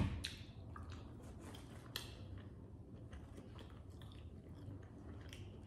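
A person chewing food close to the microphone, soft wet mouth sounds with a few sharp clicks, the sharpest right at the start and about two seconds in.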